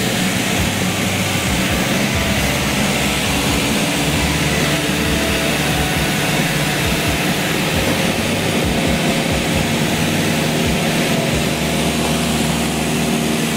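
Cessna 172 Skyhawk's single piston engine and propeller running steadily, heard from inside the cabin with a constant rush of air noise.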